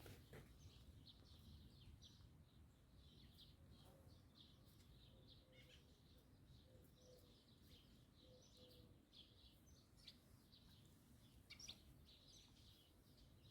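Faint bird chirping: many short, high chirps and tweets over a low background rumble.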